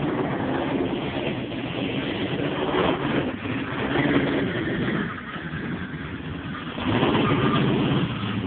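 Hummer H3's engine running and revving as the SUV drives through mud; it grows louder about seven seconds in, then eases off.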